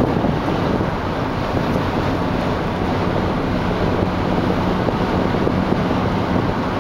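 Car driving at highway speed: steady road and tyre noise mixed with wind rush, with a faint low hum underneath.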